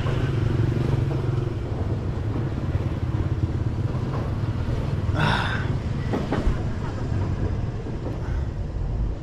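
Steady low engine rumble of motor traffic, with a brief sharper sound about five seconds in.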